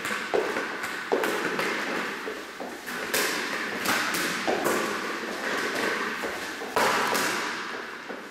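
Rubber playground ball being kicked and bouncing on the floor: a series of sharp thuds, about six strong ones, each ringing on in the echo of a large hall.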